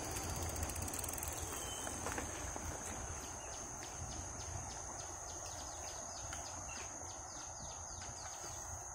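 Outdoor ambience: a steady high-pitched insect drone, and from about three seconds in a quick run of short falling chirps repeating two or three times a second, over a low rumble.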